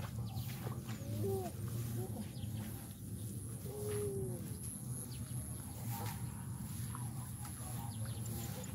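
Birds calling in the open: a few short low calls about a second in and a longer arching call around four seconds, over a steady low rumble.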